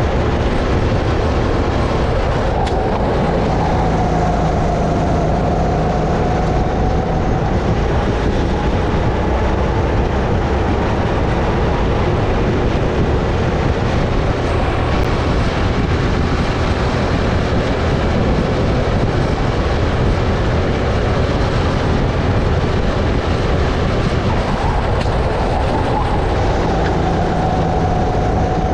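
Sodi RX-8 kart's 270cc four-stroke engine running on track, heard from a helmet-mounted camera with a dense rushing noise. The engine note sags and climbs back twice, near the start and near the end.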